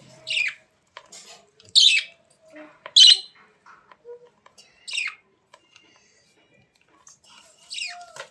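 A pet bird squawking: about five short, high calls, each falling in pitch, spaced irregularly with quiet gaps between them.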